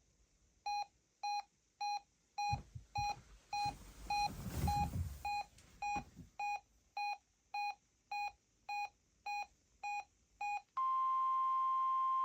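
Weather radio receiver's alert beeping, close to two beeps a second, with a low rumble and a few knocks partway through. Near the end the beeping gives way to a single steady tone: the NOAA Weather Radio 1050 Hz alert tone.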